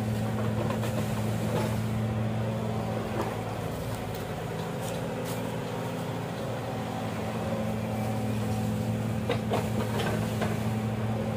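An excavator's diesel engine running steadily at an even pitch, with scattered light clicks and knocks over it.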